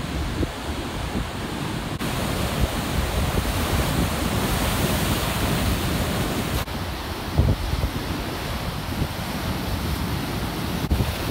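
Storm waves breaking and washing on the shore, with wind buffeting the microphone. The wash swells over a few seconds and drops off abruptly a little past halfway.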